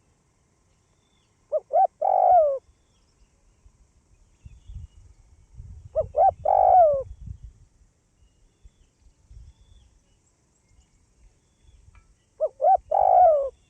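Spotted dove cooing: three phrases about five seconds apart, each of two short notes followed by a longer note that falls away.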